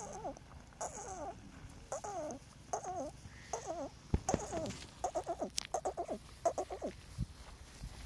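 Young green parakeets calling: a wavering, pitch-bending call about once a second, then a quicker run of shorter calls from about five to seven seconds in, with a few sharp clicks among them.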